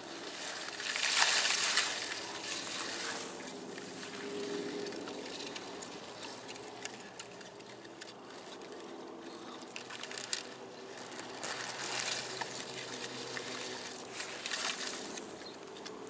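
Grass and leaves rustling and crackling as they brush against a camera held low among the plants, loudest about a second in and again in a few swells near the end.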